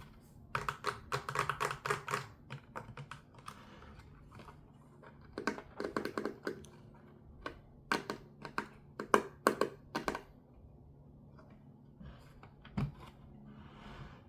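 Small hard plastic pieces being handled, giving quick runs of sharp clicks and taps in three bursts, then a single duller knock near the end.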